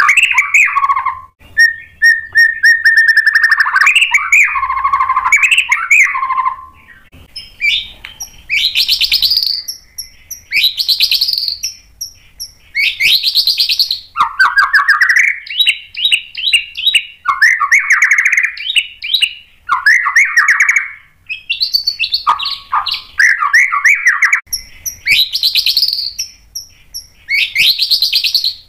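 White-rumped shama (murai batu) singing loudly: a long, varied song that opens with a held whistle, then runs through short phrases of rapid notes, many sweeping down in pitch, with brief pauses between them.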